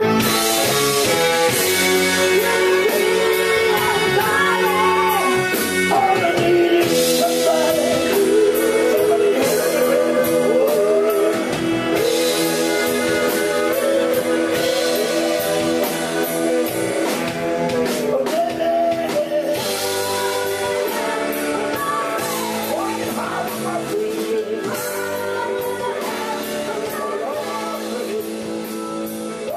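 Rock band playing: a singing voice over guitar and a drum kit with a steady beat.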